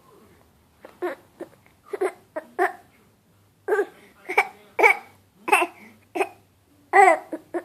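A 5-month-old baby babbling: a string of about a dozen short, high-pitched vocal sounds with brief pauses between them.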